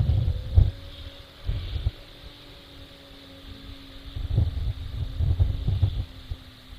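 Off-road 4x4's engine running at a distance, a steady drone, with wind gusts buffeting the microphone in irregular low rumbles that come and go.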